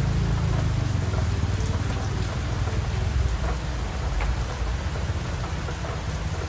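Steady rain: an even hiss with scattered small drop ticks over a strong low rumble.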